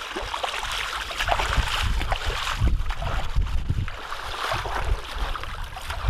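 Footsteps wading and splashing through shallow seawater, with wind rumbling on the microphone.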